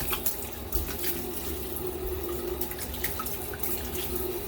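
Bathroom tap running steadily into a sink, with small clicks scattered through.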